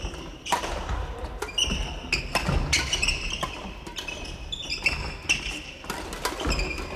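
Sneakers squeaking repeatedly on a wooden gym floor, mixed with the thuds of a ball being kicked and bouncing, in a large hall.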